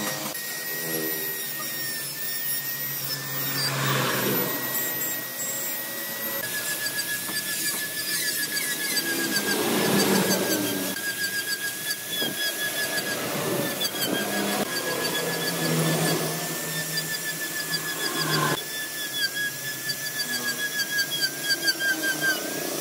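Power tool carving wood, running with a steady high whine that wavers a little under load; the whine shifts abruptly a couple of times.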